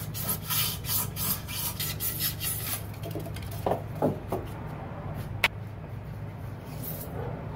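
Fine-toothed drywall saw rasping back and forth through foam board, about three or four strokes a second for the first few seconds, then scattered handling noises and one sharp click about five and a half seconds in. A steady low hum runs underneath.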